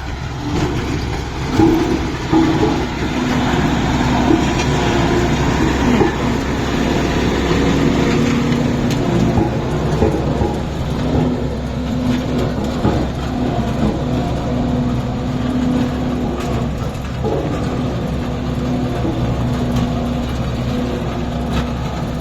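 Road roller's diesel engine running steadily with a low, constant rumble.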